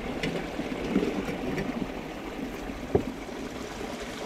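Water trickling and flowing in a small ditch, with a single knock about three seconds in.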